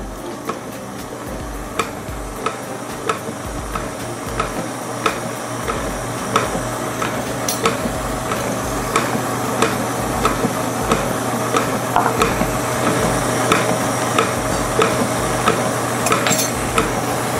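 Hobart-built KitchenAid stand mixer running on low speed, beating buttercream in its steel bowl: a steady motor hum with a light click about every two-thirds of a second as the beater goes round.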